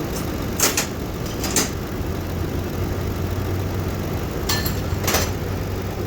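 Ford car engine idling steadily with the AC compressor running while the system is charged with R-134a refrigerant. Four short sharp noises break in, two in the first two seconds and two more near the end.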